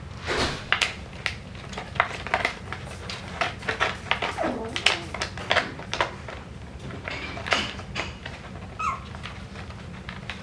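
Six-week-old Coton de Tulear puppies playing: a busy scatter of clicks and scuffles, with a short high puppy whine near the end.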